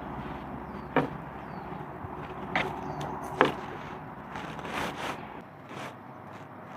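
Three sharp knocks, the first about a second in and the last two close together, with some rustling after them.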